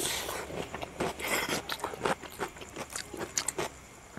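Close-miked eating: wet chewing, lip smacks and bites of pork curry and rice, with a crunch from a bite of raw cucumber at the start. The small clicks come irregularly and grow quieter near the end.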